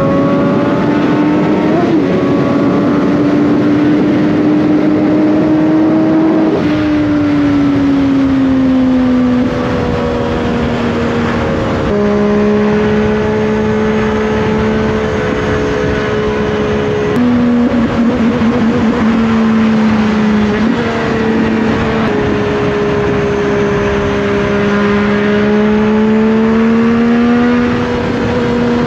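Triumph Daytona 675's inline three-cylinder engine running under way, its note rising and falling with several sudden steps in pitch, over a steady rush of noise.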